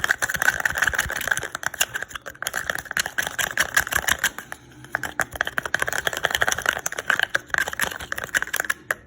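Spoon stirring slime in a bowl: rapid, continuous clicking and scraping of the spoon against the bowl, which stops at the very end.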